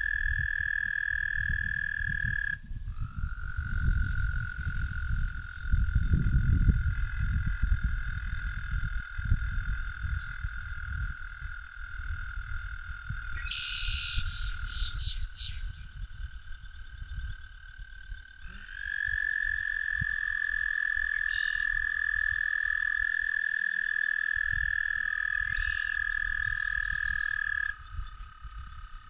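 A chorus of frogs trilling: long, steady trills at a few different pitches overlap and hand over to one another, with a brief run of high chirps near the middle and a low rumble underneath.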